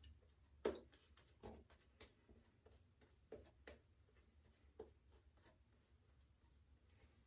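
Near silence with a handful of soft, short taps and clicks; the first, under a second in, is the loudest.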